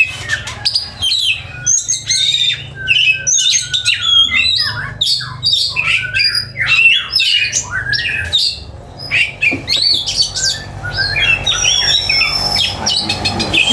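Oriental magpie-robin (kacer) singing a fast, varied song of short sweeping whistles, chatters and harsh notes, over a steady low hum.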